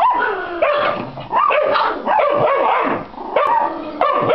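Dog barking over and over in quick, sharp barks, about two or three a second, without a break.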